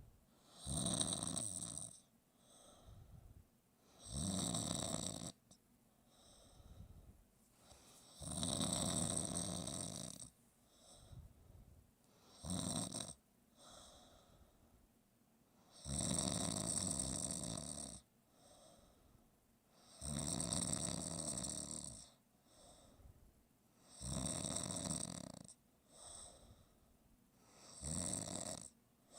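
Sleeper snoring in a slow rhythm: about eight loud, rasping snores roughly four seconds apart, each lasting a second or two, with softer breaths between them.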